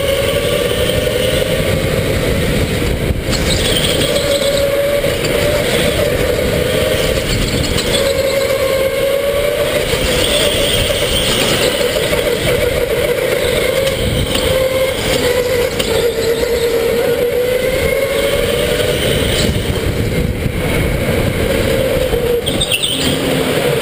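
Electric go-kart's motor whining while driving at speed, its pitch wavering up and down as the kart speeds up and slows, over a loud, rough rush of tyre and chassis noise.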